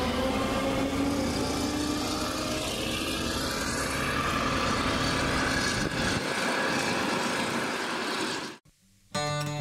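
Claas Lexion 760 TT combine harvester running, a steady mechanical din with a whine that rises slightly in pitch in the first second or so. The sound cuts out near the end and acoustic guitar music starts half a second later.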